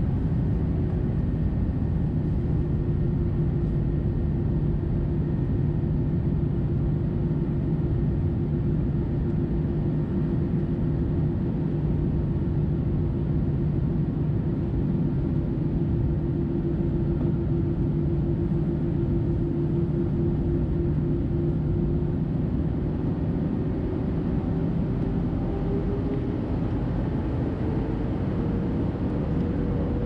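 Airbus A320 cabin noise heard from a seat by the wing: a steady rush of airflow with the CFM56 engines humming at a constant pitch. Over the last several seconds the engine tone rises steadily in pitch as thrust is increased.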